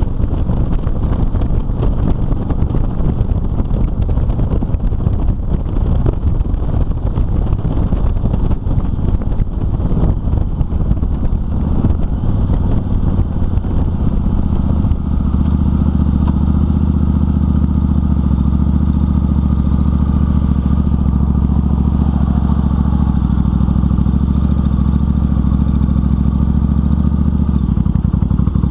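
Motorcycle engine heard from the rider's seat: while riding, wind buffets the microphone over the engine. The bike slows about halfway through and then idles steadily.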